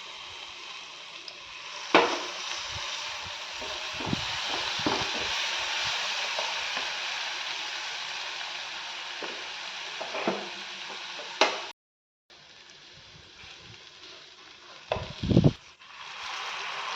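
Food sizzling as it fries in hot oil in a pan, stirred with a spoon, with a few sharp clinks of the spoon against the pan. The sizzle cuts out briefly near the middle and comes back quieter.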